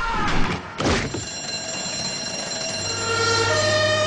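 A heavy crash about a second in, from a man falling off a pallet raised on forklift forks, under the continuous ringing of an electric alarm bell. About three seconds in, a two-tone siren starts, alternating between a high and a low note.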